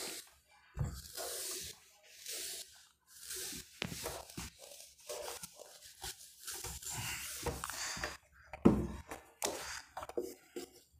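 Irregular rubbing and scraping strokes on a writing surface, with a couple of dull knocks: a board being wiped clean.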